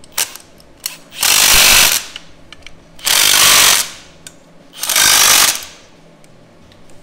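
Kobalt cordless impact driver hammering three short bursts, each just under a second, while it runs the engine mount bolts tight. A couple of sharp clicks of the socket going onto the bolt come before the first burst.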